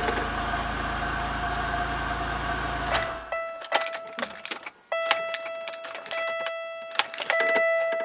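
Pontiac Grand Prix engine idling, then shut off about three seconds in. After that a steady in-car warning chime tone sounds on and off, among sharp clicks and rattles.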